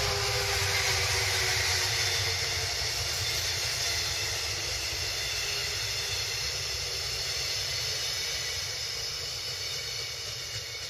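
Container freight train rolling past on the tracks: a steady rushing hiss of wheels on rail with a faint ringing hum, slowly growing fainter toward the end.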